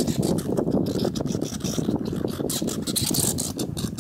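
American red squirrels scuffling in a fight: a dense run of scraping and rattling clicks.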